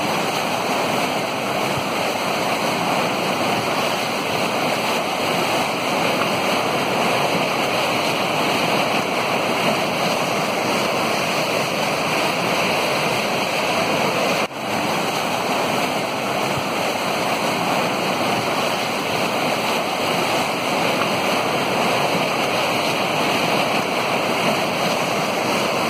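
A river in flood after heavy rain, its swollen muddy water rushing past in a steady, continuous noise, with a momentary drop about halfway through.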